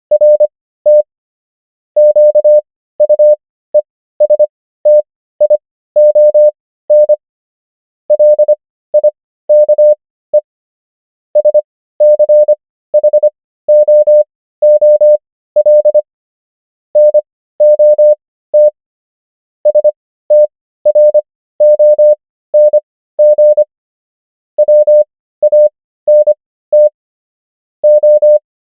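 Morse code practice audio: a single clean, steady mid-pitched tone keyed on and off in dots and dashes, spelling English words with characters sent at 25 words per minute and spaced out to 15 words per minute (Farnsworth timing), with a pause of about a second between words.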